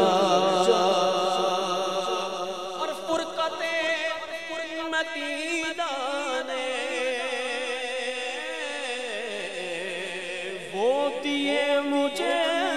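Unaccompanied male voice singing a wordless naat melody: long held notes with heavy vibrato and sliding runs between them. It swells louder again about eleven seconds in.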